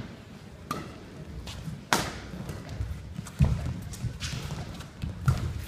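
Badminton rally: several sharp cracks of rackets striking the shuttlecock, a second or so apart, with players' footsteps thudding on the court floor.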